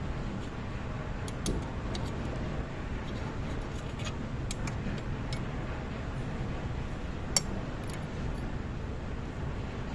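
Small metallic clicks and ticks of a steel circlip being handled and fitted over a pin on a steel chain-link plate, with one sharper click about seven seconds in, over a steady low rumble.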